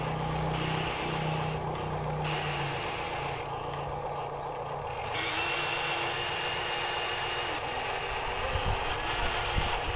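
Huina RC excavator's small electric motors whining as the boom and bucket move, with dirt and gravel scraping and spilling. The motor noise stops and starts twice in the first half as the controls are released and pressed again.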